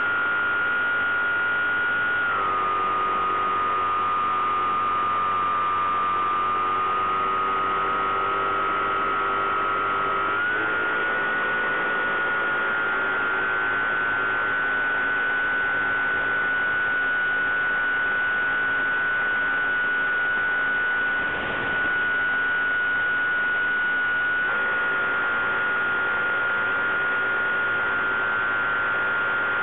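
Bix3 model plane's electric pusher motor and propeller humming in steady flight. The pitch drops a little about two seconds in, rises again about ten seconds in and edges up once more near the end, following the throttle, with a brief dip in level about two-thirds of the way through.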